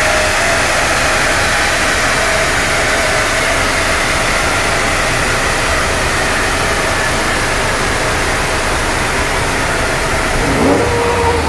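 A Subaru Impreza's turbocharged flat-four on a rolling-road dyno during the coast-down after a full-power run: a loud, steady rush of engine, tyres and rollers, with a tone that slowly falls as the rollers slow. A brief rise and fall in pitch comes near the end.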